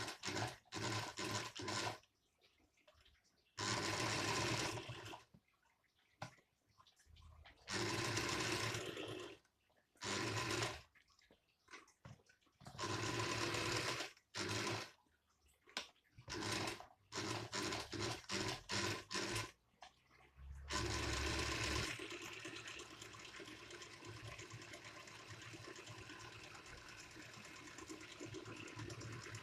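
Singer 201K electric sewing machine running in short stop-start bursts, each from under a second to about a second and a half long, with brief pauses between them.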